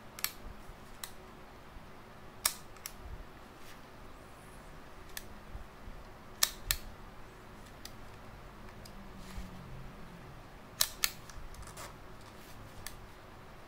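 Copal leaf shutter of a Yashicaflex C twin-lens reflex camera being worked by hand: a scattering of sharp mechanical clicks from cocking and firing, the loudest coming in close pairs about six and eleven seconds in.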